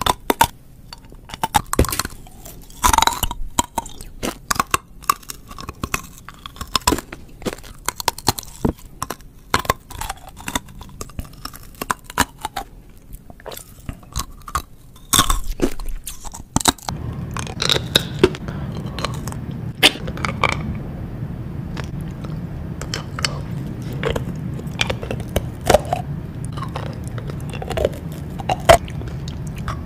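Close-miked biting and chewing of rock candy: sharp, irregular crunches as hard sugar crystals are bitten off the stick and ground between the teeth. About halfway through, a steady low hum comes in beneath the crunches.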